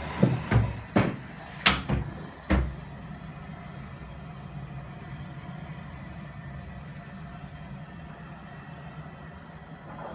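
Several sharp knocks in the first three seconds, then a steady low hum.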